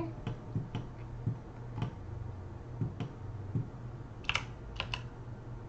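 Computer keyboard and mouse clicking: irregular single key and button presses, with a quicker cluster of three or four sharper clicks about four seconds in.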